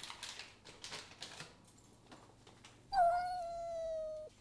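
Packaging crinkling as a cake-mix box is handled, then, about three seconds in, a cat gives one long meow that sinks slightly in pitch and stops abruptly after about a second.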